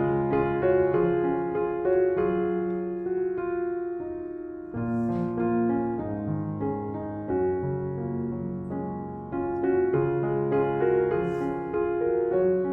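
Soft background piano music playing slow, sustained chords. A brief faint hiss comes about five seconds in and again near the end.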